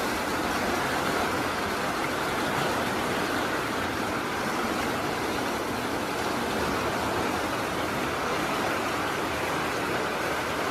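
Muddy floodwater rushing through a street: a steady, even rushing noise with no letup.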